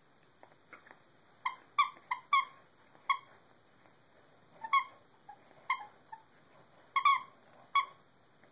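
Squeaker inside a plush reindeer dog toy squeaking as a corgi chews it. There are about a dozen short, high squeaks at an irregular pace, some in quick pairs.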